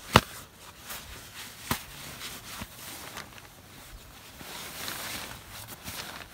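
Nylon stuff sack and plastic tarp rustling and crinkling as a rolled sleeping bag is pressed and pushed into the sack. A sharp knock right at the start is the loudest sound, with another about a second and a half later.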